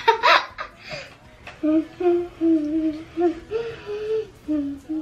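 A girl laughing briefly, then someone humming a tune in held notes that step up and down.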